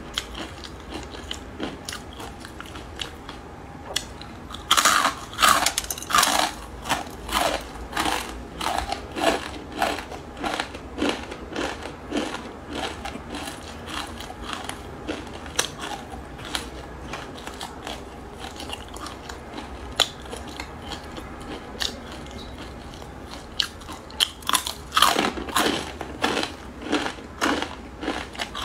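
Crispy fried instant-noodle strips being bitten and chewed close to the microphone. Loud crackly crunching comes about five seconds in and settles into steady rhythmic chewing that thins out past the middle. Another loud bout of crunching comes near the end with a fresh bite.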